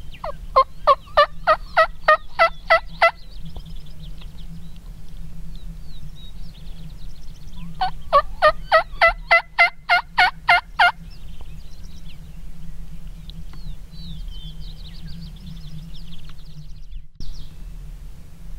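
Turkey yelping: two runs of about ten quick, evenly spaced yelps, a few seconds apart. Faint small-bird chirps can be heard between the runs, over a steady low rumble.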